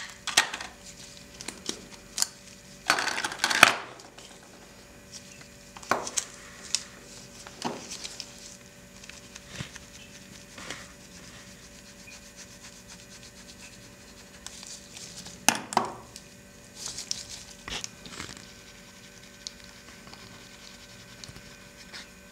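Clicks, taps and rustles of a Chanel lipstick tube being handled and opened, then soft scrapes of the lipstick rubbed across a glossy magazine page. A louder rustling scrape comes about three seconds in and another about two-thirds of the way through.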